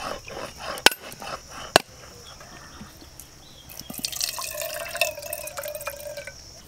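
A heavy chopper blade strikes a coconut shell twice, about a second apart, with sharp cracks. From about four seconds in, coconut water trickles from the cracked coconut into a steel mug.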